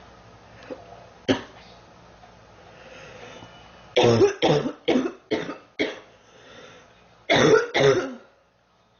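A girl coughing: a single cough about a second in, then a quick fit of about five coughs, and two more near the end.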